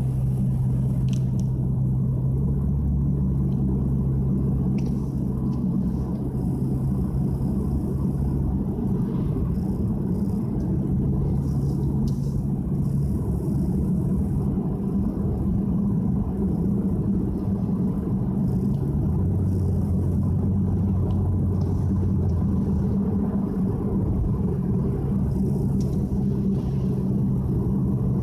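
Nissan Fuga 350GT's 3.5-litre V6 and tyres heard from inside the cabin while cruising on a wet road: a steady low drone and rumble whose pitch shifts a few times as the speed changes.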